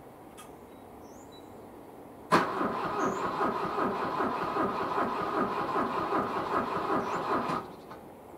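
A 1986 Volvo 245's carbureted B23A four-cylinder is cranked by its starter on a −14 °C cold start, turning over rhythmically for about five seconds without catching. It begins with a sharp click as the starter engages and cuts off abruptly.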